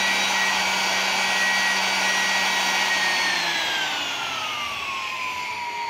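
Handheld electric air blower running at high speed: a motor whine over rushing air, held steady for about three seconds, then falling in pitch as the speed control is turned down.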